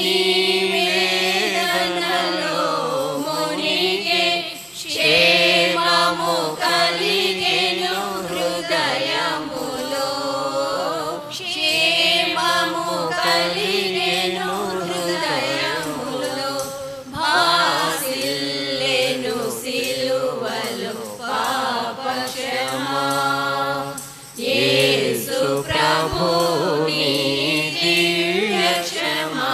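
A group of women singing a hymn together from song sheets, a cappella, with short breaks between lines.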